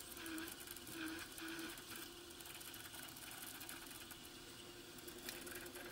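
Vertical milling machine running, faint and steady, as a 15/64-inch drill bit cuts a cross hole through a round workpiece, with a few short whining tones in the first two seconds.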